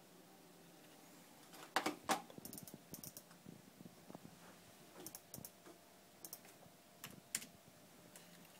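Scattered keystrokes and clicks on a computer keyboard: two louder clicks about two seconds in, then lighter clicks in small groups.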